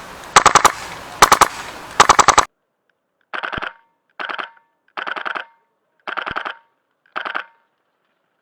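HPA-powered airsoft AK-12 (Polarstar F2 engine) firing short full-auto bursts of rapid pops. Three loud bursts come in the first couple of seconds. After the background cuts out abruptly, five quieter bursts follow about a second apart.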